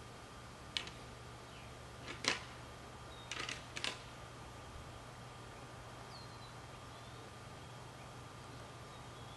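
Strutting wild turkey gobblers with a few short, sharp sounds: a single click under a second in, the loudest about two seconds in, then a quick run of several just before four seconds, over a faint steady background.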